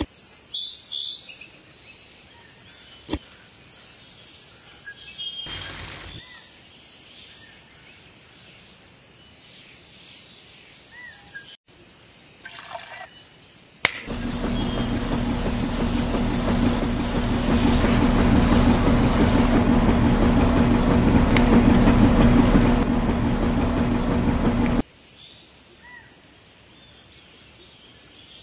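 Small motor of a miniature cement mixer switching on about halfway in and running steadily for about ten seconds, a loud even hum with the churning of the mix in its stainless-steel cup drum, then cutting off suddenly. Faint bird chirps are heard before it starts.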